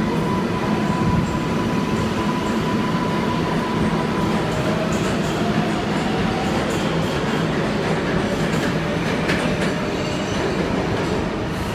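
New York City subway train in the station: a steady, loud rumble of wheels and motors, with a thin held whine in the first few seconds.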